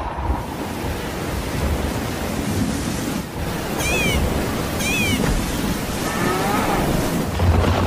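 Thunderstorm: a steady hiss of heavy rain over low, rolling thunder rumble. Two short high chirps come through about four and five seconds in.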